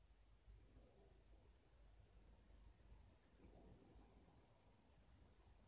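Near silence: faint room tone with a steady, high-pitched, evenly pulsing trill throughout and a low hum underneath.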